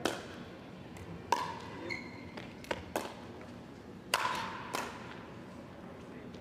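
Pickleball rally: paddles striking a Franklin X-26 plastic ball back and forth, about seven sharp pops at uneven intervals, some with a brief hollow ring.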